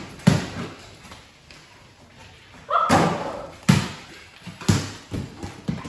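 A large play ball bouncing hard on a concrete floor: sharp thuds just after the start and again near four and five seconds in, with lighter taps toward the end.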